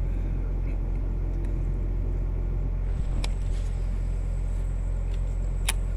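Steady low rumble of wind on the microphone, with a few sharp clicks. A thin high steady tone comes in about halfway.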